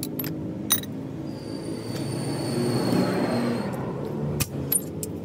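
Hand hammer striking sheet metal on a steel anvil block: a blow about a second in, a pause, then a few quick blows again near the end.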